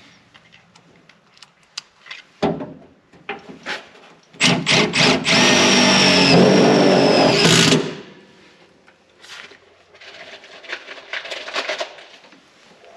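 Power drill driving a screw into the sheet-metal inner rocker panel: a few short trigger blips, then one steady run of about three seconds with a high whine that stops suddenly. Scattered clicks and taps of metal being handled come before and after.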